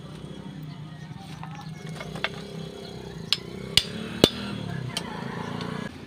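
Hammer blows on steel, striking a rod set through the bushing of a front-suspension control arm braced on a steel drum. About five sharp, irregular strikes come from about two seconds in, the loudest a little past four seconds, over a low steady hum.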